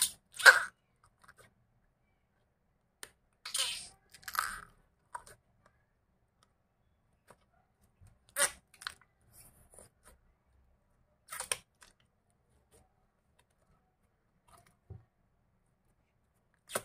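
Blue glitter slime squeezed and pressed inside a soft plastic container, giving short squishing sounds in about five separate bursts with pauses between; the loudest is about half a second in.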